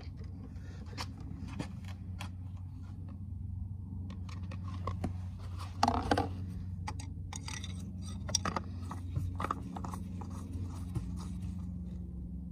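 Scrapes and clicks of hands working the dipstick and filler at an ATV's oil fill, with the loudest clatter about six seconds in. A steady low hum sits underneath.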